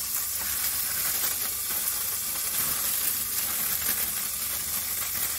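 Food frying in a lidded frying pan on a gas hob: a steady sizzling hiss.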